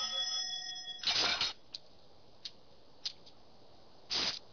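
Cartoon sound effects: a bell-like ring that fades out about a second in, then two short whooshes about three seconds apart, with a few faint ticks between them.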